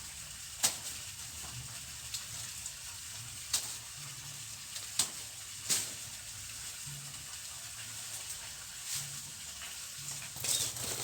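River water flowing with a steady hiss, broken by a few sharp clicks at irregular intervals.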